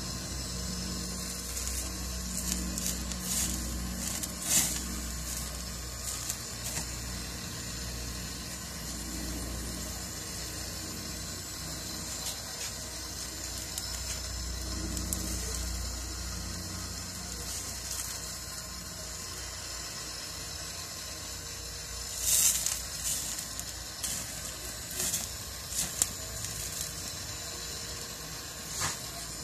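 Sirloin turning on a gas-grill rotisserie sizzling over the burner flames, fat dripping and spitting, with a steady hiss broken by sharp crackles and pops that bunch together about three-quarters of the way through.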